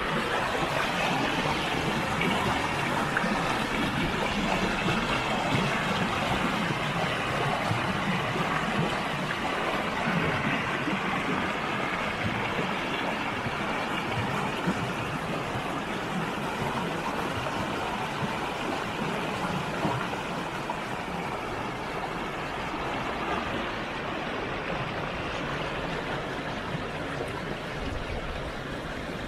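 Steady rush of running water, growing slightly fainter near the end.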